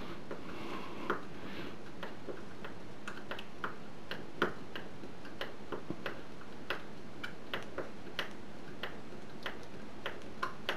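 Screwdriver turning a small hex-head sheet metal screw into a wooden board, giving irregular light clicks and ticks, about one or two a second.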